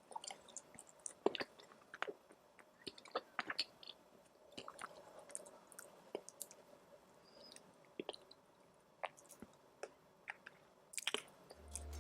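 Close-miked chewing: soft wet mouth clicks and smacks at irregular moments, with pauses between bites. Music starts just at the end.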